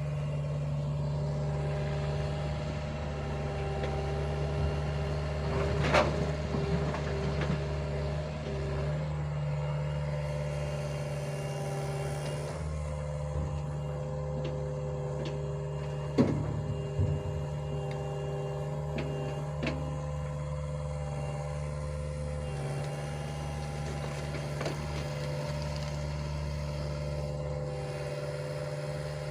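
Heavy diesel engine running steadily, with a constant drone and a few sharp metallic knocks about six and sixteen seconds in.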